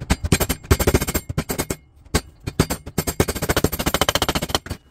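Brass hammer rapidly tapping a new front seal into a 4L60E transmission pump body, about ten taps a second in two runs with a short pause about two seconds in, stopping just before the end as the seal seats.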